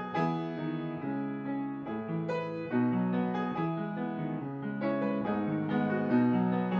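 Background piano music: a steady flow of notes, each starting crisply and then fading.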